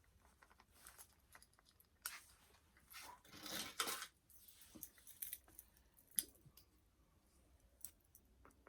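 Faint clicks and soft rustles of a plastic doll and its small plastic sunglasses being handled, with a longer rustle a little past three seconds in.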